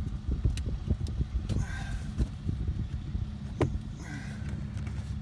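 Plastic knocks and clicks of hands working the cabin air filter access door behind a Ford Fusion's glove box, a door that will not flip down. There is a sharp click about three and a half seconds in, and a steady low hum comes in after it.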